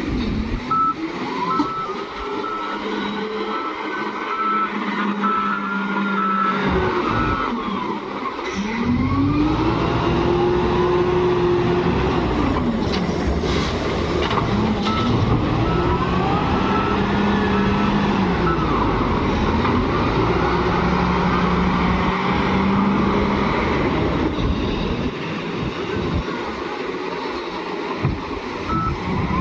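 SDLG wheel loader's diesel engine revving up and down over and over as it works a load cycle. A reversing alarm beeps at several points.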